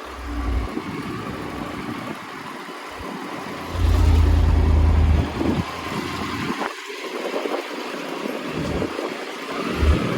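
Motorcycle running at low speed, with wind buffeting the microphone; a loud low rumble of wind about four seconds in lasts a second or so.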